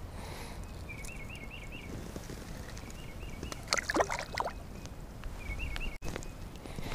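A small fish dropped back into shallow pond water, a brief splash and slosh about four seconds in. A bird repeats a short warbling phrase several times, over a low wind rumble on the microphone.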